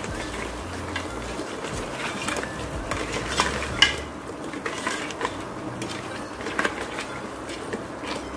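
A ladle stirring thick crab masala in an aluminium pressure cooker, scraping through the gravy and knocking against the sides of the pot with irregular clicks, one sharper knock about four seconds in.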